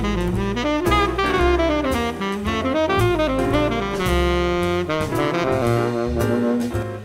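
Ishimori WoodStone New Vintage tenor saxophone in dark lacquer playing a jazz line of quick runs and slides, with a long held note about four seconds in, over a backing track of bass and drums. The horn speaks readily, which the player takes as a sign that its pads are sealing as they should.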